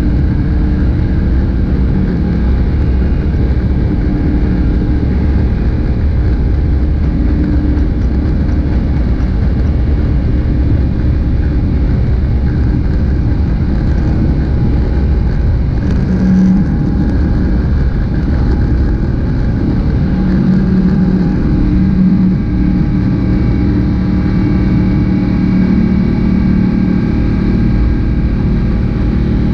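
Airbus A350-900 heard from inside the cabin during takeoff: its Rolls-Royce Trent XWB engines at takeoff power with the rumble of the takeoff roll, a loud steady drone that carries on through liftoff into the climb.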